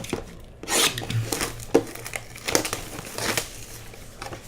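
Packaging of a sealed trading-card hobby box being torn open and crinkled by hand, in a series of crackling rips, the loudest a little under a second in.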